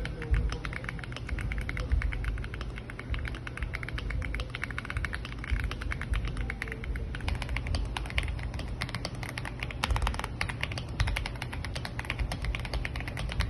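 Fast typing on an AULA mechanical keyboard, a dense run of key clicks with no letup, under a low steady hum.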